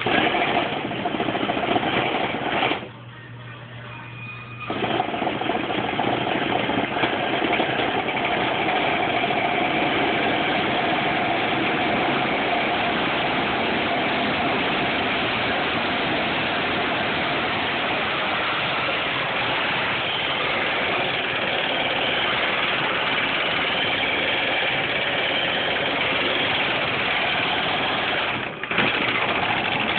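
Electric RC car running on a homemade wooden roller dyno, its tyres spinning the rollers: a steady, noisy whir with vibration from rollers that wobble. About three seconds in it drops off for a couple of seconds, then picks up again and runs steadily, with a brief dip near the end.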